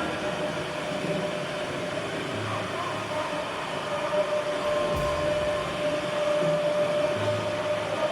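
Improvised experimental music for turntables and drums: a dense, steady noise drone with a held tone through it, and a single sharp click about five seconds in.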